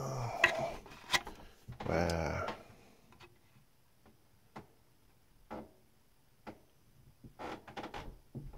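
Scattered light clicks and taps of a small circuit board being handled and turned over under a magnifying lamp while its solder joints are checked, with a brief low pitched sound about two seconds in and a small cluster of clicks near the end.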